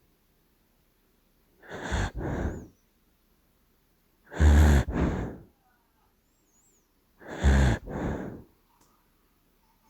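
Sleeping dachshund snoring: three rasping snores about three seconds apart, each in two parts, the middle one loudest and deepest.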